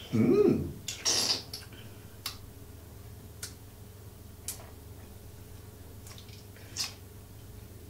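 Wine-tasting mouth sounds: a short voiced 'mm' right at the start and a quick hiss of drawn-in air about a second in. A few soft, scattered mouth clicks and smacks follow as the wine is held and tasted.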